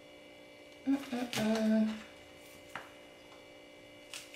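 A woman humming a short closed-mouth "mm" about a second in, its pitch dipping slightly and then held for about half a second. Later come two light clicks of a fork against a plastic takeout salad container.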